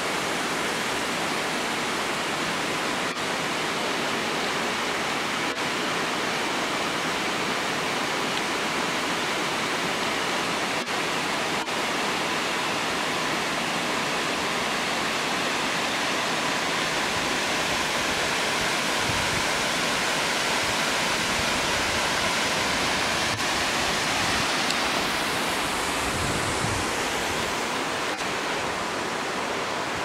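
Steady rush of the Todtnau Waterfall, a tall cascade of water spilling over rock, growing slightly louder past the middle.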